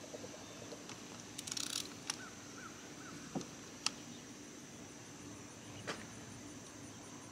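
A few faint clicks and knocks of hand tools working the oil filter off an outboard motor, over a steady high insect buzz and a few small bird chirps.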